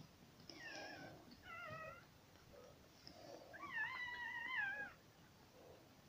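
Kitten mewing: three high-pitched mews, the last one longer and wavering.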